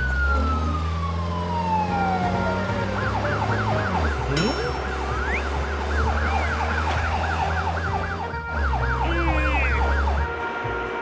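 Police siren sound effect: a long falling tone, then about three seconds in a fast warbling wail of roughly three cycles a second, over a steady low drone.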